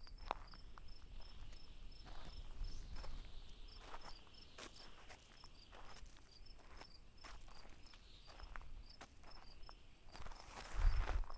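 Crickets chirping in a steady repeating rhythm over a constant high insect trill, with footsteps on the railroad track's gravel ballast. Near the end a louder rush of noise with a low rumble.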